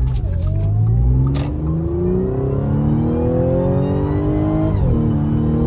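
2013 Audi S4 B8.5's supercharged 3.0 TFSI V6 accelerating hard, breathing through a freshly fitted carbon-fibre cold air intake: the revs climb steadily with a high supercharger whine rising with them, then drop sharply at an upshift near the end.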